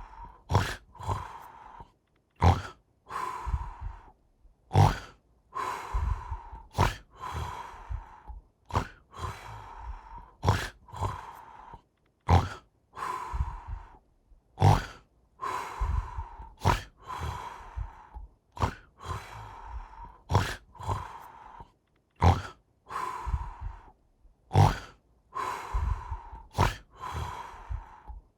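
Snoring, one rasping snore about every two seconds, each with a short sharp snort.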